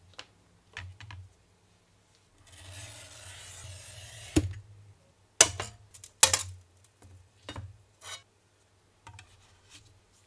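A hand glass cutter scores a sheet of clear glass with a steady rasp lasting about two seconds. Then come three sharp cracks as strips are snapped off along the score lines, and after them lighter clicks and taps of glass.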